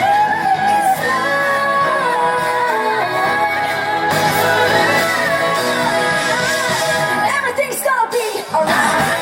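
A woman singing live over a band, holding long notes that slide in pitch over steady pop accompaniment; the music thins briefly a little before the end.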